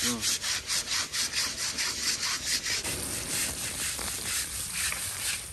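An elephant's hide being scrubbed during its bath: quick rhythmic rasping strokes, about three to four a second, that blur into a steadier scraping about halfway through.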